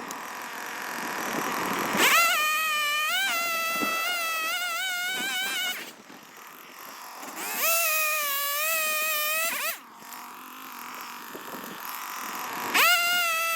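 Chainsaw revved up to full throttle three times, each burst holding a high, slightly wavering pitch for a few seconds before dropping back to a lower idle.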